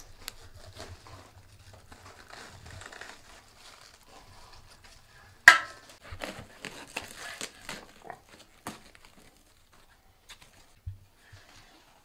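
Faint crackling of a wood fire in a cast-iron stove's firebox. About halfway through, a sharp metallic clink with a short ring from a knife against a steel tray, followed by crisp crunching and crinkling as cabbage leaves are cut and pulled from the head.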